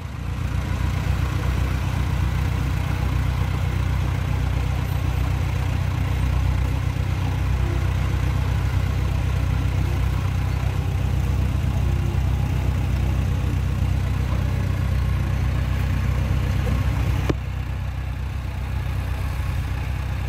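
Diesel engines of heavy earthmoving machinery, a small crawler bulldozer and a dump truck, running steadily at low revs with a deep, even chug. The sound steps down a little in level near the end.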